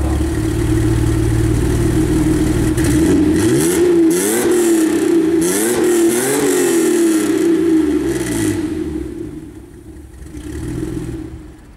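Opel Senator engine running just after starting, heard from behind at the exhaust: a steady idle, then revved up and down several times in quick blips, dying down near the end.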